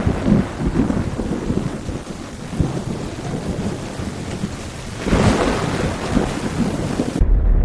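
Heavy rain pouring with thunder rumbling, and a louder roll of thunder swelling about five seconds in. Just before the end the sound cuts abruptly to a deep, steady low rumble.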